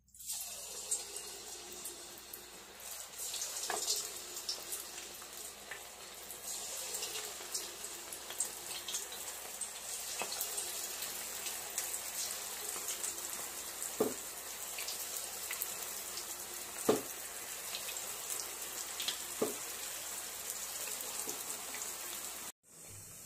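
Oil sizzling steadily in a kadhai as cabbage-batter Manchurian balls deep-fry, with a few sharp pops scattered through. The sizzle stops abruptly near the end.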